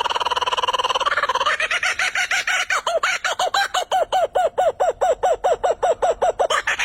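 A night bird calling: a fast, buzzing rattle, then a long run of quick, evenly spaced notes, about seven a second, that stops shortly before the end.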